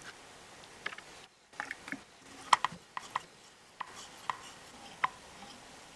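Scattered light clicks and taps of small metal parts being handled as a throttle cable is fitted into a Bing carburettor slide and fed into the carburettor body. The sharpest click comes about two and a half seconds in.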